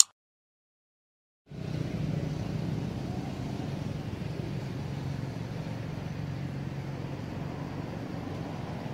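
Steady outdoor background rumble with a faint low hum, starting about a second and a half in after silence.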